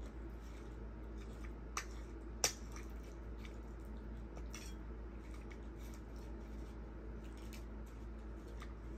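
Close-up eating sounds at a table: scattered soft clicks and crunches of food and utensils, with two sharper clicks about two seconds in. A steady low hum runs underneath.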